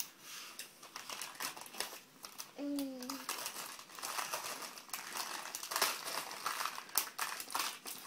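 A hand rummaging inside a Bertie Bott's Every Flavour Beans box gives an irregular crinkling and rustling of the packaging as a bean is picked out. A child's voice makes a brief sound about three seconds in.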